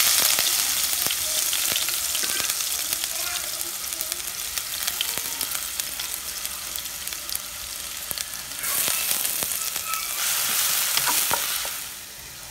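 Sliced small onions (shallots) sizzling in hot oil. The sizzle starts suddenly and loud as they hit the oil and runs on, with fine crackling clicks as they are stirred with a wooden spatula. It swells again for a few seconds late on, then dies down near the end.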